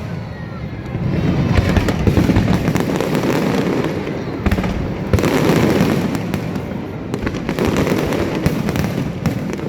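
Aerial fireworks display: a dense, continuous run of bangs and crackles over low booms, with no pause.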